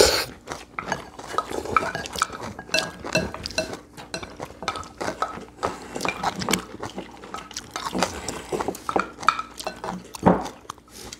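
Spoons clinking and scraping against bowls in irregular small knocks as food is mixed and eaten, with one louder knock about ten seconds in.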